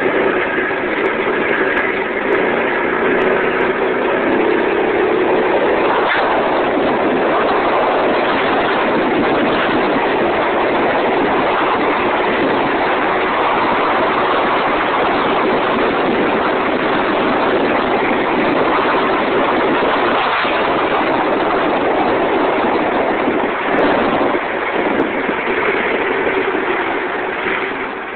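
Predator single-cylinder four-stroke engine on a go-kart with a torque converter, running under throttle as the kart drives at speed, loud and steady throughout.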